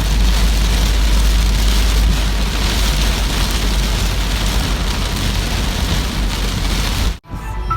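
Heavy rain falling steadily, a loud even hiss over a deep low rumble, which cuts off abruptly near the end.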